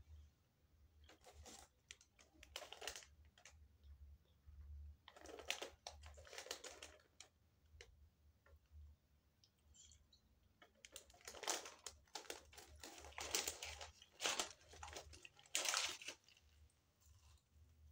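Paper food bag rustling and crinkling in several bursts as it is handled and opened, loudest in a run of crackles in the second half.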